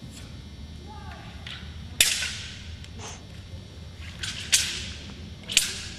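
Thin, flexible wushu competition broadsword (dao) blade cracking sharply as it is swung and chopped: three loud cracks about two seconds in, at four and a half seconds and near the end, with a lighter snap just before the second.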